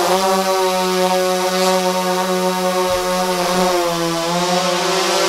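VISTA quadcopter drone's rotors running in a steady high buzz as it hovers. A little after three seconds in the pitch sags briefly and comes back up as the motors adjust.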